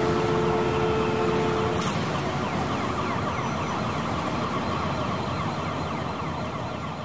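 Street noise with an emergency vehicle siren. It starts abruptly and fades slowly away.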